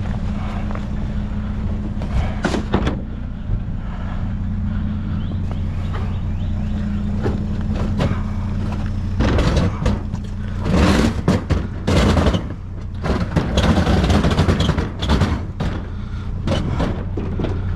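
Steady low hum of an idling vehicle engine. From about nine seconds in come a run of knocks, rattles and clatters as scrap is handled, loudest in the middle of that stretch.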